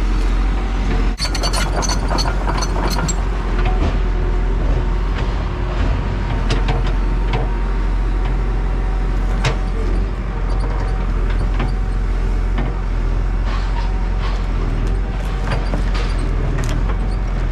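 Large excavator's diesel engine running steadily at low throttle, on its first throttle level, while it digs out a stump. A cluster of sharp knocks comes about one to three seconds in, with scattered knocks later.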